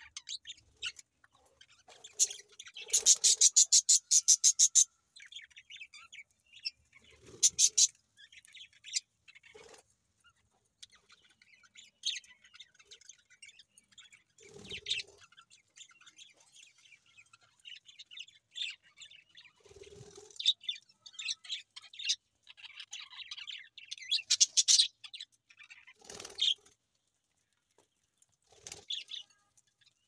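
Budgerigars chirping and chattering, with a rapid run of buzzy pulsed calls, about ten a second, a few seconds in and a shorter run near eight seconds. A few short knocks are mixed in.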